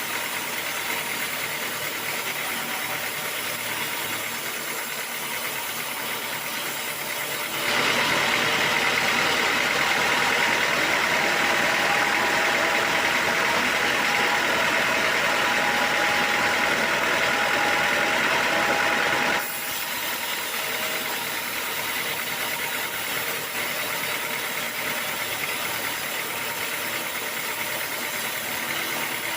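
Sawmill machinery running steadily. About 8 seconds in it turns suddenly louder and higher-pitched for roughly 11 seconds, then drops back to the steadier running sound.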